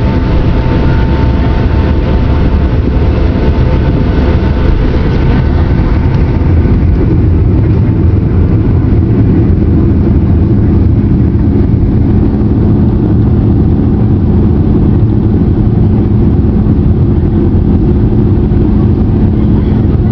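Jet airliner's engines and airflow during takeoff, heard from inside the passenger cabin as a loud, steady rumble. The higher hiss eases after about six seconds, and a steady low hum comes in about eight seconds in.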